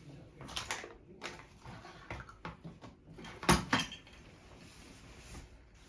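Handling noises with scattered clicks, then two sharp knocks in quick succession about three and a half seconds in, with a short echo of a small room.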